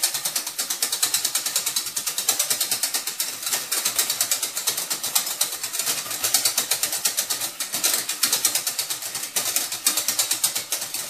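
Wire balloon whisk beating eggs in a stainless steel pot: a rapid, even clatter of the metal wires striking the pot's sides and bottom.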